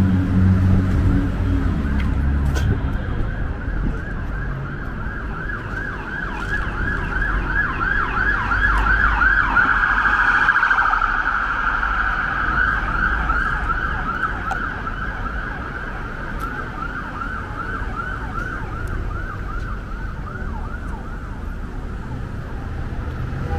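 Emergency vehicle siren in a fast yelp, about three or four rising sweeps a second, growing louder toward the middle and fading away toward the end, over the rumble of street traffic.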